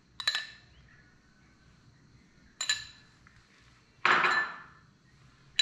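A metal spoon clinks a couple of times against a small glass bowl as green chutney is spooned out. About four seconds in comes a louder clatter of dishware.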